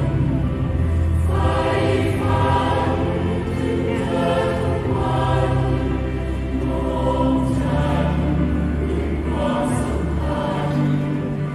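Mixed choir of men and women singing a Thai song in harmony, moving through a series of held notes.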